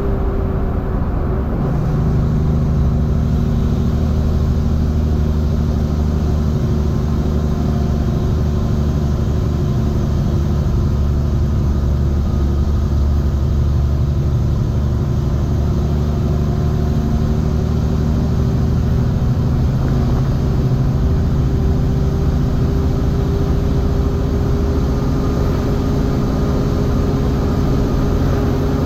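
Semi-truck diesel engine running steadily under load while hauling a heavy refrigerated trailer. A deeper hum sets in about two seconds in.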